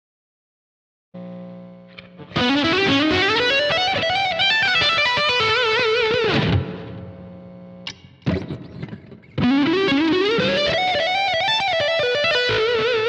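Electric guitar through a neck humbucker playing a lead phrase twice: a rising run of single notes that settles on a held note with vibrato, the second phrase starting about nine seconds in.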